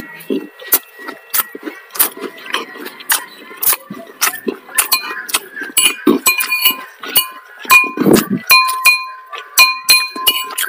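Metal spoon clinking and scraping against a ceramic plate: many sharp taps, each followed by a short ringing of the plate, coming faster in the second half as the last grains of rice are scooped up.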